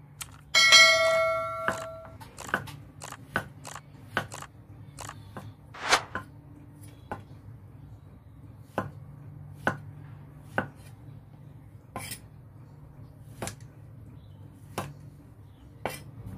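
A cleaver chopping tempeh on a thick wooden chopping board: sharp knocks, quickly in a run at first, then spaced about a second apart. Near the start, a loud bell-like ringing chime lasts about a second and a half.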